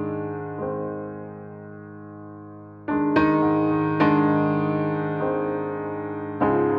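Background piano music: slow, sustained chords, a new one struck every second or two and left to ring and fade.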